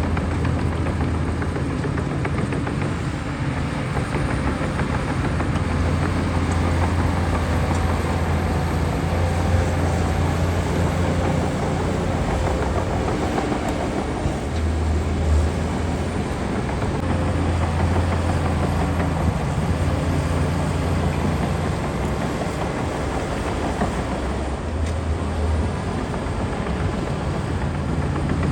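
Heavy diesel engine of a Shantui DH17C2 crawler bulldozer running steadily under load. Its low drone swells and eases every few seconds as the machine works.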